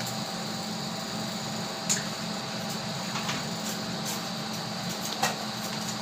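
Steady mechanical room hum with a faint high whine, broken by two short clicks, one about two seconds in and another about five seconds in.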